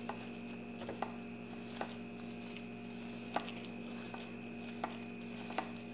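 Faint squishing and occasional light clicks of a plastic-gloved hand kneading mashed potato with fried onion and coriander on a plate, mixing aloo bhorta, over a steady faint hum.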